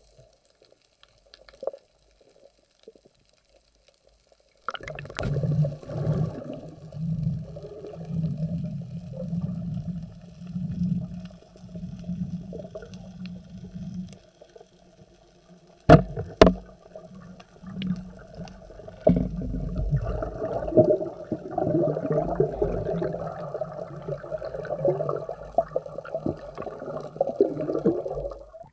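Muffled underwater water noise at a diver's camera: after a quiet start, rushing and gurgling water sets in with a slow, regular pulse about once a second. A little past halfway, two sharp knocks come half a second apart.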